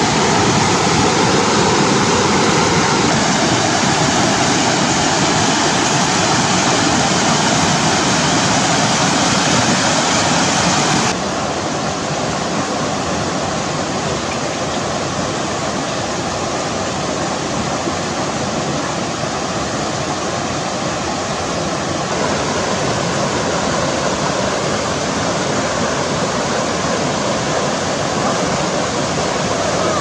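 Rainforest river rushing over rocks and small falls: a loud, steady rush of water. It steps down in level about eleven seconds in and comes back up a little about ten seconds later.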